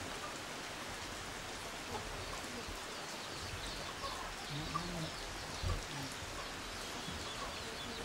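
A steady, even hiss of water, with faint high bird chirps through the middle and a couple of short, soft low calls about four and a half seconds in.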